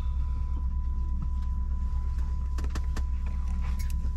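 Steady low drone inside an Embraer 190-E2 airliner cabin on the ground, with a thin constant whine, and a few light clicks about two and a half to four seconds in.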